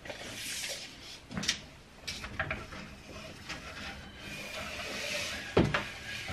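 Handling noise of a wooden board and a tape measure on a workbench: a sliding hiss that comes and goes, and a few knocks, the loudest a knock near the end.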